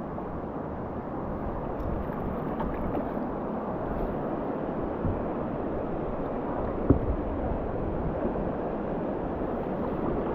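Steady rush of river water, growing slightly louder, with one sharp knock about seven seconds in.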